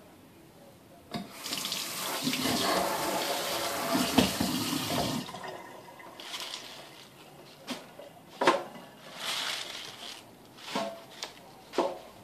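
Kitchen tap running for about four seconds, its water splashing loudly, then shut off. A string of short splashes and sharp knocks follows.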